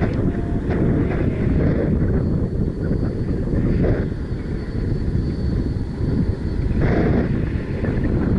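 Strong gusty wind buffeting the microphone in flight under a paraglider: a dense low rush that swells and eases, with a few short beeps in the first second.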